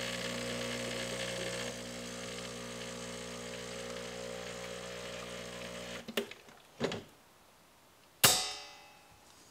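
Breville Barista Express's vibratory pump humming steadily for about six seconds while water is flushed through the group head and portafilter, then cutting off suddenly. A couple of short knocks follow, and near the end a single sharp metallic clank rings out.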